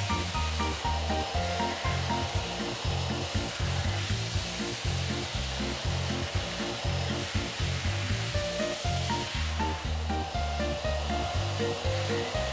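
Background music with a steady beat: a repeating bass line under short melody notes, over a steady hiss.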